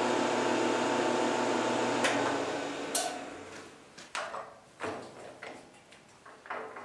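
Benchtop milling machine's motor and spindle running steadily, switched off with a click about two seconds in and spinning down. Then several sharp metallic clunks and clicks as the vise is worked and the part handled.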